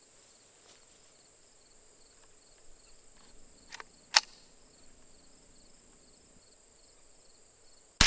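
Crickets chirping steadily in the background. A few faint clicks come a little before the middle, then one sharp loud crack about four seconds in. A loud burst of gunfire starts just at the very end.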